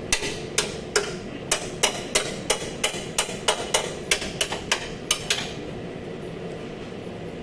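Hammer blows on car body metal during collision repair, a quick even run of about three strikes a second that stops about five seconds in.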